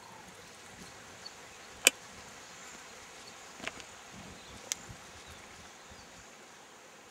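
Faint buzzing of flying insects in the open air, with three sharp clicks: a loud one about two seconds in and two softer ones a couple of seconds later.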